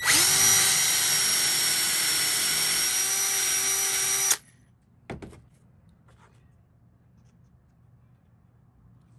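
Small electric power tool switched on, spinning up and running steadily with a whine for about four seconds, then switched off abruptly. A single sharp click follows about a second later.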